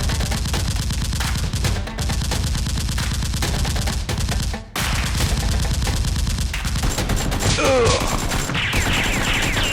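Sustained rapid automatic gunfire, many shots in quick succession. It breaks off briefly about halfway through, then resumes.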